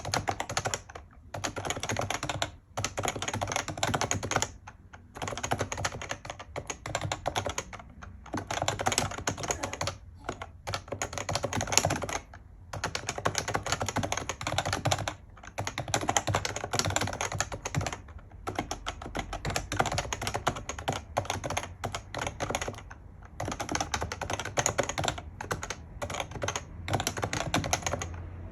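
Typing on an HHKB Professional JP keyboard with Topre electrostatic capacitive key switches: fast, continuous keystrokes in runs of a few seconds, broken by short pauses.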